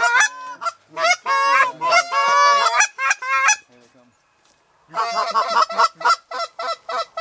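Geese honking, many overlapping calls with some longer drawn-out honks, then a break of about a second in the middle, followed by a quick, even run of short honks.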